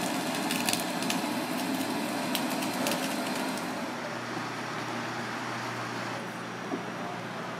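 Handheld gas blowtorch hissing as it sears slices of raw monkfish on a wire grill, with sharp crackles and pops from the seared flesh. Nearly four seconds in the torch stops and a lower steady hum remains.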